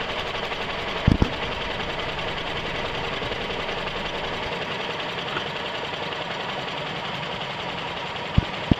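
1997 Toyota RAV4's engine idling roughly with an uneven, chattering run, the rough idle that worsens almost to stalling under any electrical load. There are two short thumps about a second in and two more near the end.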